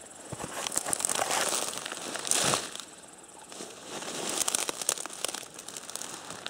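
Rustling and crackling of grass and brush stems as someone pushes and steps through dense undergrowth, with many small snaps and a louder swell about two and a half seconds in.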